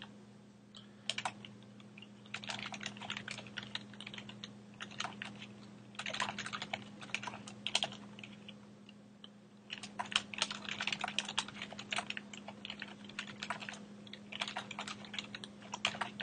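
Typing on a computer keyboard: bursts of rapid keystrokes with short pauses between them.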